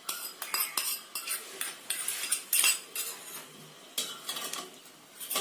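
Stainless-steel spoon and ladle clinking and scraping against a steel cup and a steel pot as roasted nuts are spooned in and the payasam is stirred: many short, irregular clinks.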